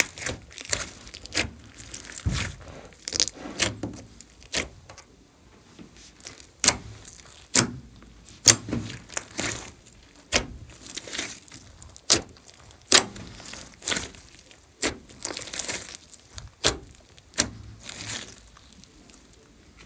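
Hands squeezing, stretching and folding a large mass of slime: sticky squelches broken by sharp pops and crackles, irregular, one or two a second.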